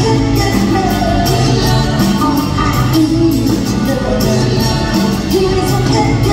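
Female lead vocal sung live over a pop-rock band (drums with a steady beat, bass guitar, guitar and keyboards), played through a concert PA.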